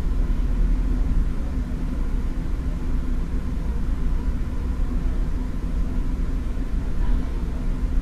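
Inside a Taiwan Railways DRC1000-series diesel railcar rolling slowly at about 8 km/h: a steady low rumble of the diesel engine and running gear.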